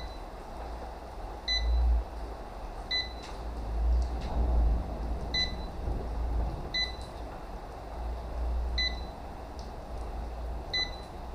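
Short high electronic beeps from a laser level, seven of them spaced about one and a half to two and a half seconds apart, over an intermittent low rumble.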